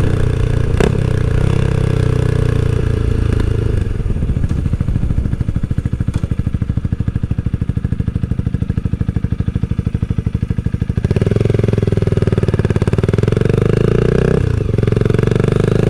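Honda Rebel 300's single-cylinder engine running as the bike slows for a stop, dropping to a slow, even near-idle beat, then getting louder as it pulls away about eleven seconds in.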